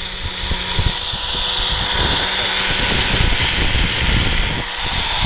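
Drill Master 4½-inch angle grinder running with a 120-grit flap disc, sanding paint off a steel cylinder; a steady grinding hiss with uneven low bumps as the disc is worked along the curve. The grinder is a cheap one whose spindle bearing is going out.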